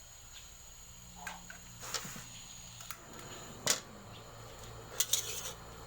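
Several sharp clicks and knocks a second or so apart as the cooking fire under a wok is being lit. A faint steady hiss fills in from about halfway.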